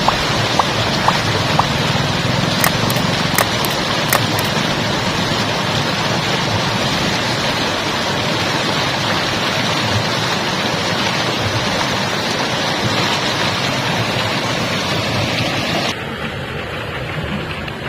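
Steady rushing of running water, with a few sharp clicks of marbles in the first few seconds. Near the end the sound suddenly turns duller and quieter.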